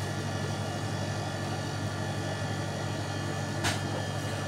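Steady low mechanical hum with faint steady high tones over it, typical of the cutting room's machinery, and one sharp knock on the steel counter about three and a half seconds in while a large carp is being scaled.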